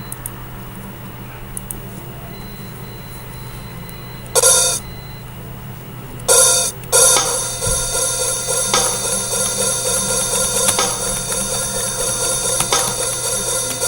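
Drum kit being played: a low steady hum at first, then a cymbal crash about four seconds in and two more a couple of seconds later, after which the cymbals ring on continuously under a beat with strikes about every second or two.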